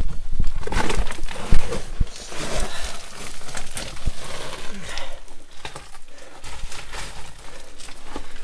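Loose rock and gravel crunching, scraping and knocking under a person crawling and sliding down a rocky slope, in an uneven string of knocks, the loudest about one and a half seconds in.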